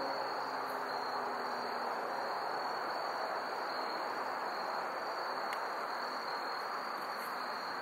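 Outdoor background: a continuous high, steady insect trill over an even hiss.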